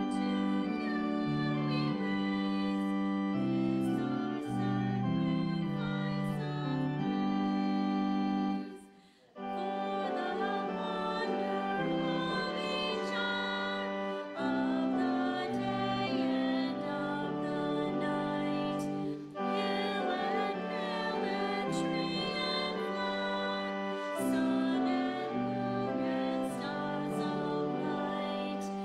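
Congregational hymn singing with keyboard accompaniment: held chords with voices. The music stops briefly twice, about nine and nineteen seconds in, between lines of the hymn.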